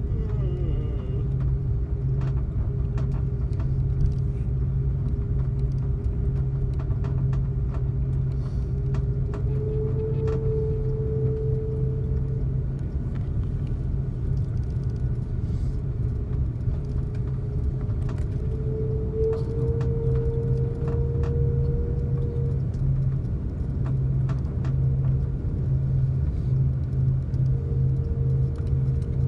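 Cabin noise of an Airbus A330-200 taxiing: a steady low rumble and hum from the engines and rolling gear. Over it runs a faint whine that rises a little in pitch about ten seconds in and again near twenty seconds.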